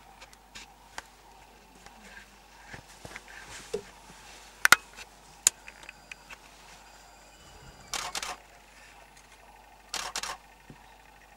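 DSLR camera shutter firing: a few single clicks, then two short rapid bursts of continuous shooting about two seconds apart in the second half, over faint handling knocks.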